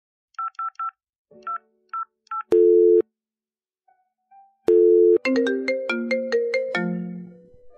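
Mobile phone placing a call: six short keypad beeps of the dial tones, then two longer low ringback tones about two seconds apart. A short melody of plucked notes stepping up and down follows and fades near the end.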